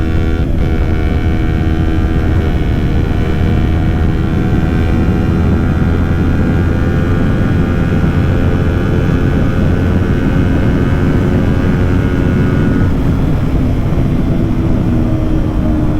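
Kawasaki Ninja 400 parallel-twin engine running at a steady cruise under a strong low rush of wind on the helmet microphone, its engine note softening about three-quarters of the way through.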